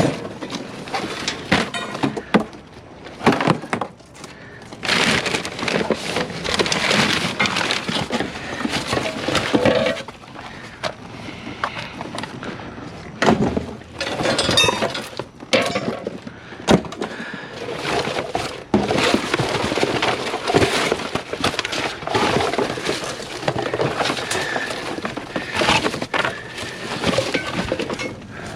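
Scrap debris being rummaged and shifted inside a metal dumpster: irregular clattering, crunching and breaking, with knocks and clinks.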